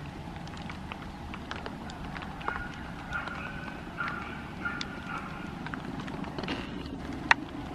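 Steady rain falling, with heavy drops tapping close by. A faint high tone sounds in several short broken pieces through the middle, and one sharp tap comes near the end.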